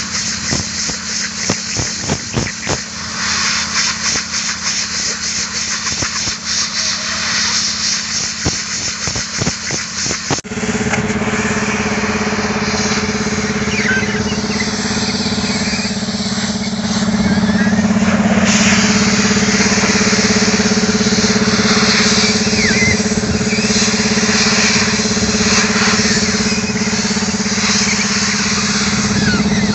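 Compressed air hissing from a hose nozzle as it is blown through a large cylindrical heavy-duty air filter element from the sugarcane harvester, over an engine running steadily. Uneven at first, the sound changes abruptly about ten seconds in to a louder, steadier hiss and hum.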